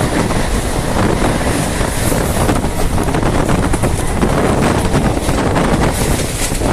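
Passenger train running at speed, heard from on board: a steady, loud rumble of the coaches on the track with wind buffeting the microphone.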